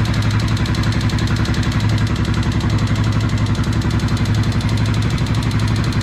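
2011 Honda XR650L's air-cooled single-cylinder engine idling steadily, with a tapping from the top end. The mechanic puts the tapping down to the automatic decompressor kicking back in.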